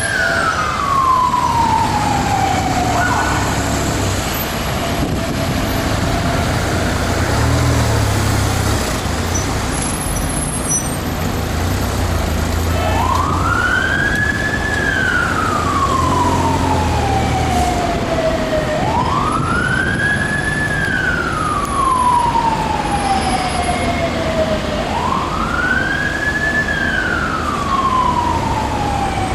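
Police siren on a slow wail: each cycle rises quickly to a high pitch, then falls away slowly over about five seconds. One sweep dies away a few seconds in, the siren is silent for about nine seconds, and then three sweeps follow back to back, over the low rumble of traffic engines.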